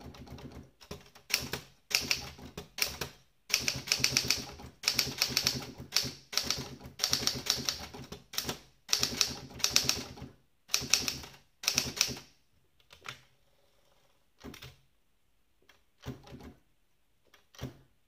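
Olympia SG1 wide-carriage manual typewriter being typed on: quick runs of key strikes for about the first twelve seconds, then thinning to a few separate strokes.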